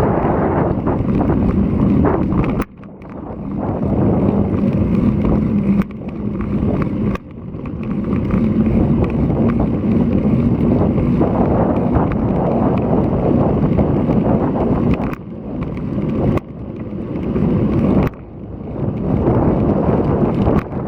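Strong, gusty typhoon wind buffeting an action camera's microphone on a moving bicycle: a loud rushing that drops away suddenly several times and builds back up each time.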